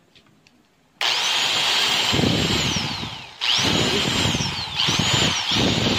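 New angle grinder with no disc fitted, test-run free for the first time: it starts about a second in, its motor whining up to full speed and then winding down as it is switched off, then is switched on again three more times in quick succession.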